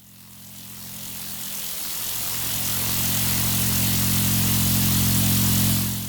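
Electrical hum sound effect: a steady low mains-type buzz with a crackling hiss that swells up over several seconds, as if power is building, then fades away near the end.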